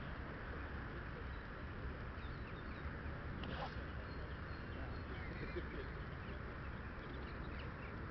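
Steady wind noise on the microphone, with small birds chirping now and then.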